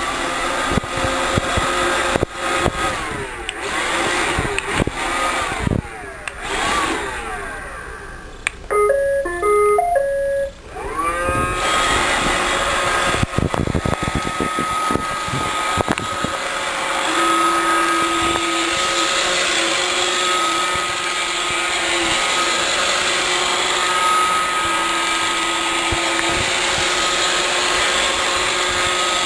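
Roomba robot vacuum on spot clean. Its mechanical noise slides up and down in pitch, then a short tune of stepped beeps plays about nine seconds in. Its motors then spin up with a rising whine and run steadily.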